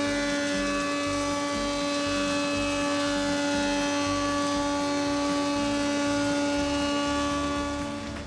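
Stationary thickness planer running with a steady hum while a curved laminated wooden frame is fed through it. The hum fades near the end.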